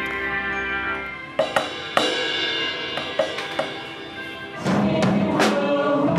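A drum kit takes over from sustained instrumental music about a second in. First come a few sharp cymbal-and-drum hits, then a busy kit groove from about two-thirds of the way through, louder than before.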